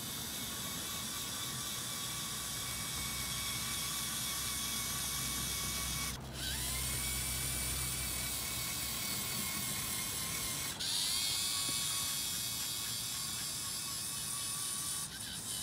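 Lego EV3 Mindstorms robot race car's electric motors whining steadily as it drives. The whine cuts out briefly about six and eleven seconds in and again near the end, rising back up in pitch each time it starts again.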